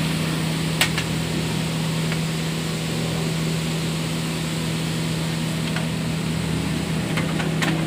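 Synthetic silicone pillow-fibre grinding machine running: a steady motor hum under a rush of air as the shredded fibre is blown out. A few sharp clicks come about a second in and again near the end.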